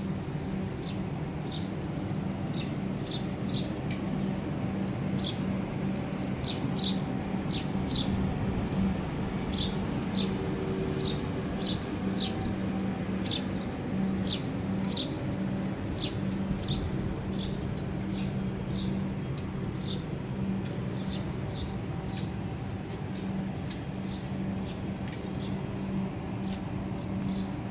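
A flock of small birds chirping continuously, short downward-sliding chirps several a second, over a steady low hum.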